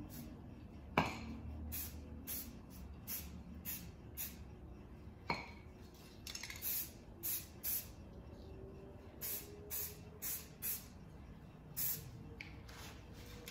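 Rust-Oleum aerosol spray paint dabbed on in many quick, short puffs of hiss, touching up a freehand camouflage pattern. There is a sharp clink about a second in and another a little after five seconds.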